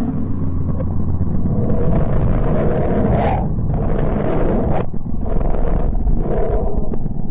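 Space-sound audio presented as the sound of the planet Mercury, made by converting electromagnetic waves into sound: a dense, deep rumble with hissing swells that rise and fall about four times.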